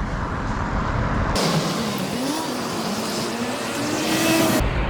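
A road vehicle driving past, its engine note rising and falling, with wind rumbling on the microphone at the start and end.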